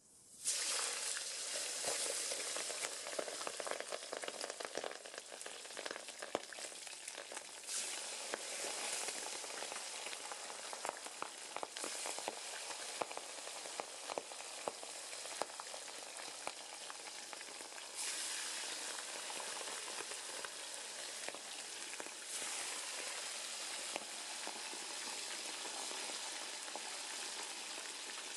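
Raw chicken pieces frying in hot oil in a cast-iron kazan: a loud sizzle bursts up as the first piece goes in, with crackling and spitting, and flares again several times as more pieces are dropped in.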